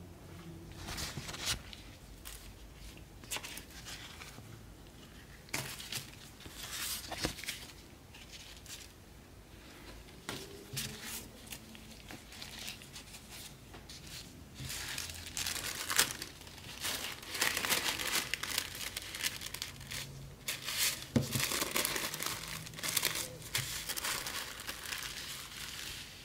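Pink tissue paper rustling and crinkling as gloved hands lay a card on it and fold it up, getting busier and louder in the second half, with a couple of sharp crackles.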